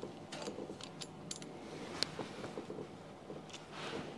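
Faint small metallic clicks and light clinks of a Torx bit driver on small screws at the propeller flange, with a sharper tick about two seconds in.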